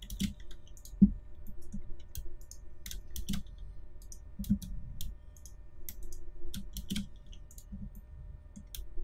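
Computer keyboard keys and mouse buttons clicking at an irregular pace as shortcuts are pressed and edges selected, some clicks with a dull thud.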